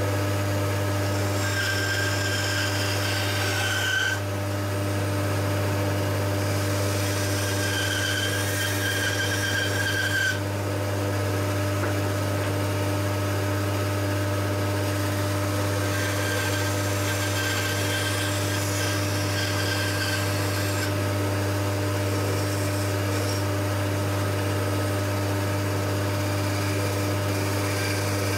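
Homemade wooden band saw running with a steady hum while its blade cuts a curved shape out of a thin wooden board. A higher whine and hiss comes in three times as the blade bites into the wood.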